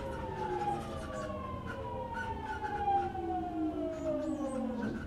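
Traction motors and VVVF inverter of a JR East 209 series 0 (un-renewed) electric motor car, heard from inside the car. They whine in several tones that fall together as the train slows for the next station, and near the end the whine dives sharply and drops away.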